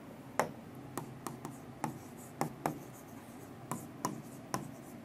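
Stylus tip tapping and clicking on the glass of an interactive touchscreen display while handwriting an equation: light, irregular ticks, about two or three a second.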